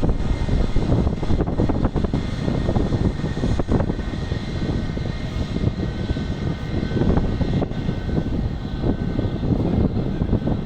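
Engines of an Airbus A321-200 jet airliner: a loud, steady rumble, heaviest in the low end, with a faint high whine above it.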